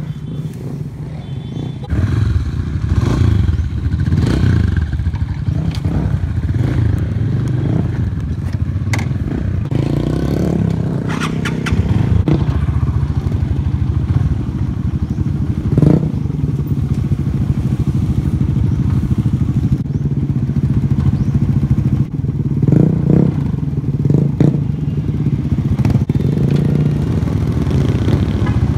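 Motorcycle engine running steadily while riding along, loud and close, with a few short knocks over it.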